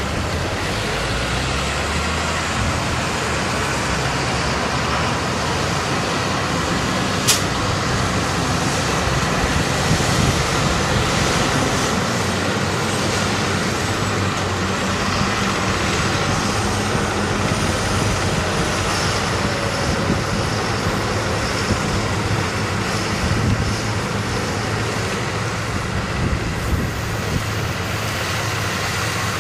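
Several large farm tractors' diesel engines running under load as forage wagons unload chopped maize onto a silage clamp; a steady, loud mix of engine noise with one sharp click about seven seconds in.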